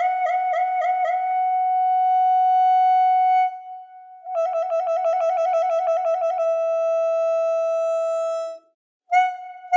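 Instrumental music for a northeastern Thai (Isan) dance. A single high melodic instrument plays quick repeated notes, then long held notes. About four seconds in it plays a fast pulsing run, then holds another note, and breaks off briefly near the end.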